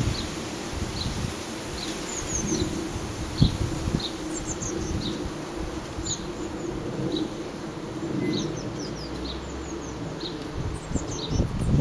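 Blue tits giving short high calls about twice a second, mixed with quick runs of higher chirps, over gusty wind rumbling on the microphone.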